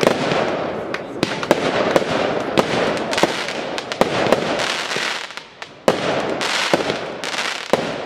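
Aerial fireworks bursting in quick succession, with sharp bangs about twice a second over a steady rushing noise. The barrage thins for a moment about two-thirds of the way through, then picks up again.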